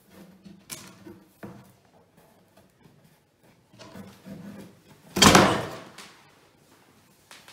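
Flat-pack drawer panels being handled, with faint knocks in the first couple of seconds and one loud wooden knock about five seconds in as a board strikes the drawer frame.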